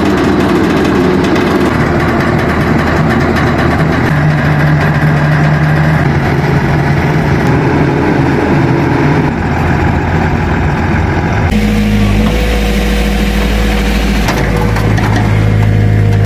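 Truck-mounted water-well drilling rig's engine running steadily as the rig's mast is raised upright. About eleven seconds in the sound cuts to a backhoe's engine running while its bucket digs a pit.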